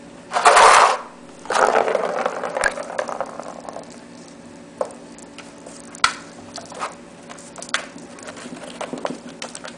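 A plastic ball-track cat toy with a cardboard scratcher centre scraping and rattling on a tile floor as it is pushed, in two noisy stretches over the first three seconds. Then scattered clicks and taps as kittens bat at it and climb onto it.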